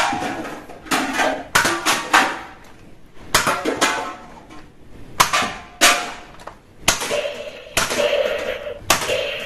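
Toy gun going off in a string of sharp cracks, about nine in all, irregularly spaced at roughly one a second, each with a short hissing tail.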